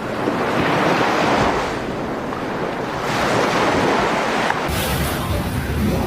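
Floodwater rushing and surging, a loud steady noise that swells and ebbs. From about four and a half seconds in, wind buffets the microphone with a low rumble.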